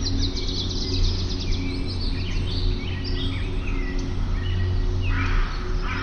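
Several birds chirping and calling, with a rapid trill at the start and a harsh call near the end, over a steady low hum.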